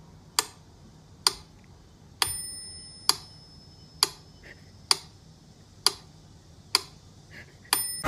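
Mechanical metronome ticking at a slow, steady beat of a little over one tick a second. Its bell dings on every sixth beat, twice in all, the second time near the end.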